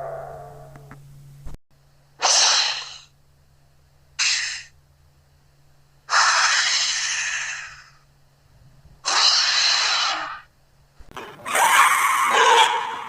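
A string of short cartoon sound effects: breathy, hissy bursts one every two to three seconds, the last, near the end, louder and rougher.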